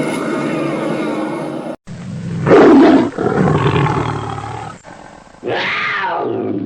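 Dragon roar sound effects, played back to back with abrupt cuts: a steady rumbling roar that stops short, then a louder roar that swells to its peak about half a second after it starts, then a roar whose pitch falls away near the end.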